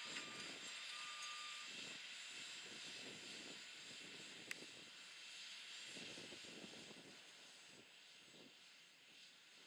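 Faint, distant, steady running of a New Holland T8.390 tractor's engine as it pulls a 24-row corn planter, growing fainter toward the end. A single sharp click about four and a half seconds in.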